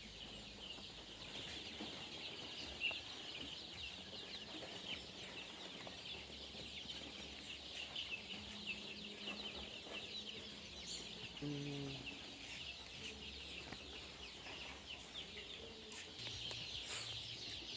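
A large brood of Skuay-breed village chicks peeping continuously, many high, rapid peeps overlapping.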